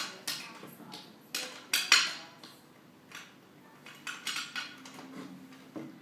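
Key turning in an Iseo Cross key cylinder fitted to a sliding-door mortise lock: a series of sharp metallic clicks and clacks from the lock mechanism, the loudest about two seconds in, with another cluster a little after four seconds.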